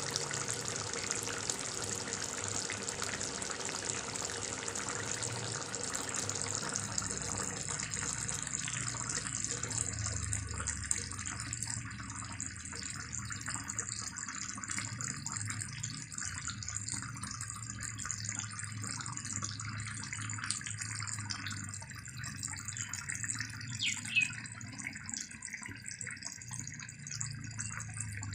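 Pork and mustard-green curry bubbling at a simmer in a wok: a steady watery hiss that eases somewhat after the first several seconds, over a low steady hum, with one brief sharp sound near the end.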